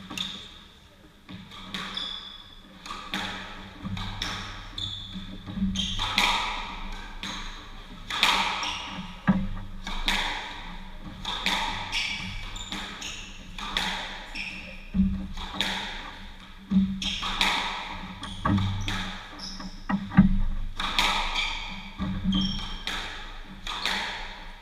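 Squash rally: the ball is struck by rackets and smacks off the court walls about once a second, each hit echoing in the court.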